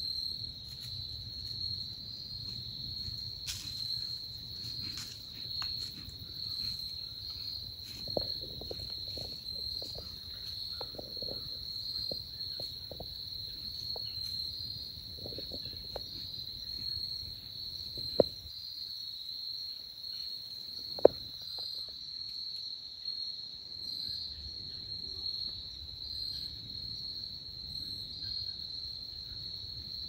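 Crickets trilling steadily in one high, unbroken chorus. Scattered faint crackles come through the middle, and two sharp clicks stand out a little past halfway.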